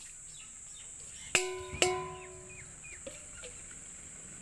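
Stainless steel bowls clanking twice, about half a second apart, each strike ringing on briefly with a clear metallic tone. Faint bird chirps and a steady high insect tone sit behind them.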